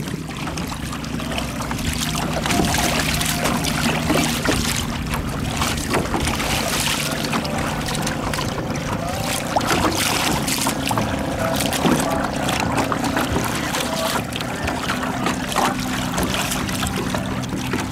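Water rushing and splashing along the hull of a small sailing kayak under way, with wind buffeting the microphone. Faint steady low humming tones run underneath.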